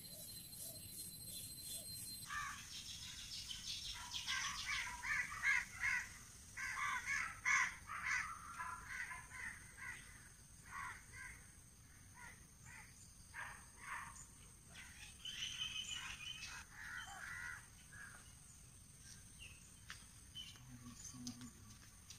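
Crows cawing, many harsh calls in quick runs, starting about two seconds in and thinning out near the end.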